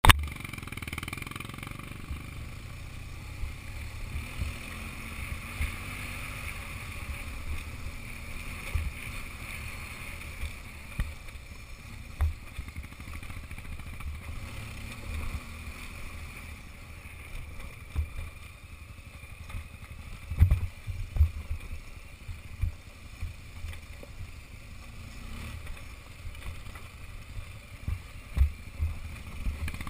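BMW R1200GS boxer-twin engine running at low trail speed, with frequent thumps and knocks as the bike jolts over a rough, rocky dirt track. The heaviest knocks come in a cluster about two-thirds of the way through.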